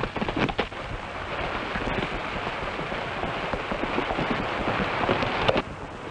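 Horses galloping off on a dirt trail: a dense, rapid clatter of hoofbeats, with a sharp knock near the end.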